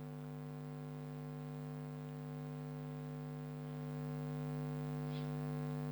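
Steady electrical mains hum with a stack of higher overtones, running as a constant drone under the recording.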